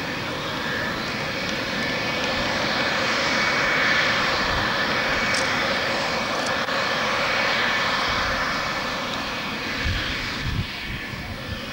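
F-4F Phantom II's twin J79 turbojets running at low power on the ground: a steady jet rush with a high whine, swelling slightly about four seconds in. A few low thumps near the end.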